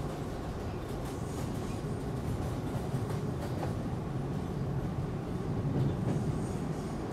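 Subway car running along the track, heard from inside the car: a steady low rumble with a few faint clicks.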